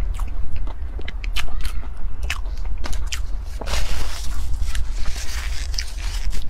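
Close-miked eating sounds: sharp wet mouth clicks and smacks of biting and chewing over a steady low hum. From about three and a half seconds in comes a dense crackling rustle lasting a couple of seconds, as she bites at what she holds to her mouth with both hands.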